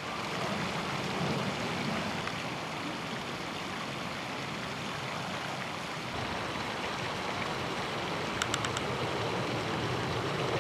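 Steady outdoor rushing noise at the water's side, even and unbroken, with a quick cluster of sharp little ticks about eight seconds in.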